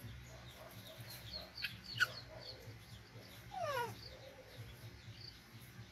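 Small birds chirping in the background, a sharp click about two seconds in, and a little later one animal call that glides downward in pitch.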